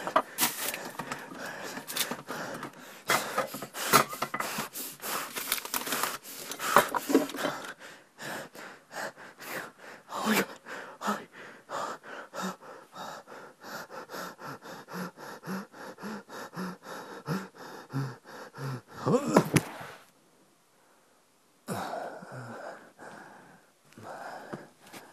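A person breathing hard and gasping, with many quick knocks and rustles over it. Both stop for about a second and a half near the end, then start again.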